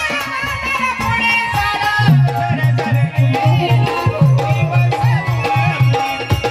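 Marathi folk song: a singer's wavering melodic line over a hand drum keeping a steady beat of low strokes.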